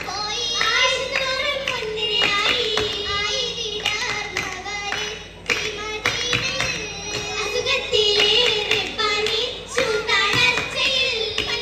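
Oppana: girls' voices singing a Mappila song together, with rhythmic hand clapping keeping the beat.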